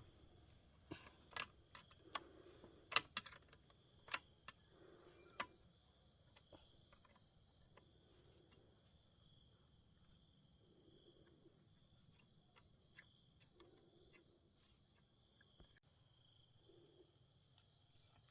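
Steady high-pitched chorus of insects, crickets or similar, with a few sharp clicks and taps in the first five seconds or so. A faint low pulse repeats about every one and a half seconds.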